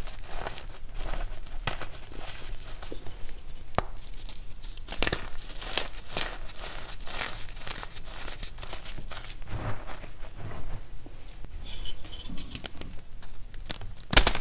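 Hands crumbling and sifting gym chalk powder and crunchy reformed chalk chunks: a continuous gritty crackle of many small crunches. Just before the end a pressed chalk block is squeezed and gives a sharp, loud crunch.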